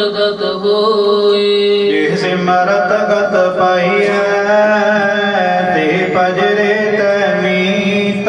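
A man's voice chanting a Sikh hymn (Gurbani) in a slow, sung melody over a steady held drone.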